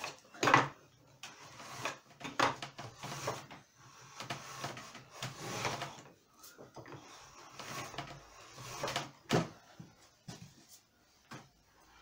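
Wooden bookbinding plough sliding back and forth along a laying press, its blade shaving paper from a book's fore edge in repeated short scraping strokes about a second apart, cutting in one direction only.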